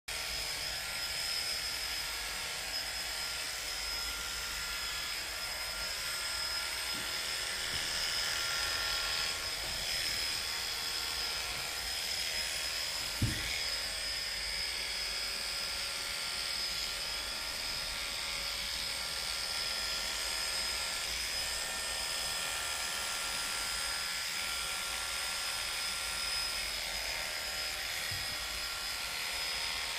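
Electric pet hair clippers running steadily with a high whine as they trim a cat's fur around the head and ears. A single brief thump about halfway through.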